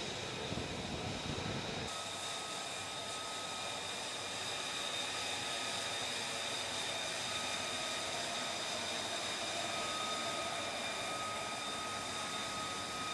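F-35B's Pratt & Whitney F135 jet engine running steadily: a rushing hiss with thin, high whining tones. About two seconds in the low rumble drops away and the whine stands out more.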